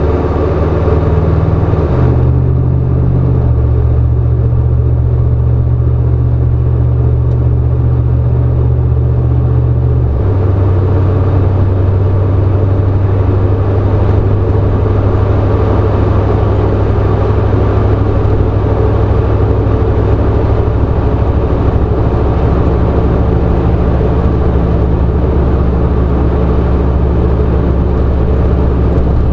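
A car driving with a steady low engine drone and road noise. The engine tone steps down in pitch about two seconds in and again about ten seconds in.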